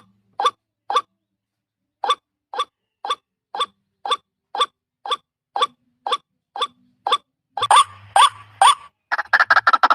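White-breasted waterhen call used as a hunting lure: a short pitched call repeated about twice a second, with a pause of about a second early in the run. Near the end the calls grow louder, then break into a rapid run of many calls a second.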